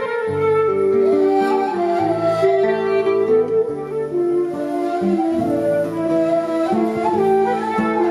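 Music: a flute-like wind instrument playing a melody in held notes over a sustained bass line.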